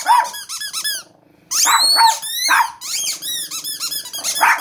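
A dog's rubber squeaky toy being chewed, squeaking in quick runs of short high squeaks, with a brief pause a little over a second in.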